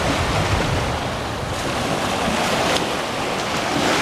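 Surf washing up on a sandy beach, a steady rushing noise, with wind buffeting the microphone in a low, uneven rumble.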